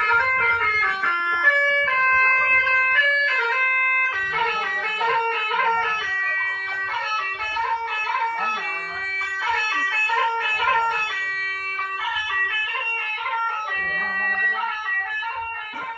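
Telolet bus horn set with four trumpets playing a fast tune: steady, buzzy horn notes switching quickly from pitch to pitch, sometimes sounding two or more at once.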